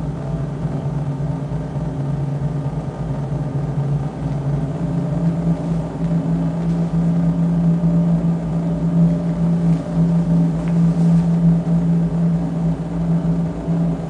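Live electronic noise music: a loud, steady low drone with a fast low flutter underneath, played on electronic instruments and effects units.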